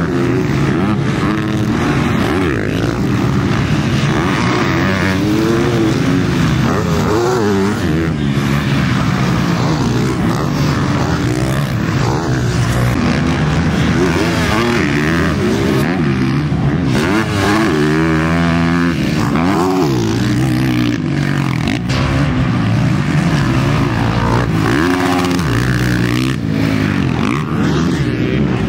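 Several motocross bikes racing, their engines revving up and easing off in turn, with rising and falling pitches that overlap.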